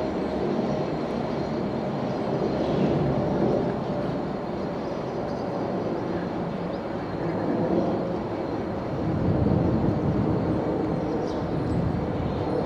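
Steady distant rumble of a pair of Class 66 diesel locomotives running away down the line, mixed with outdoor background noise.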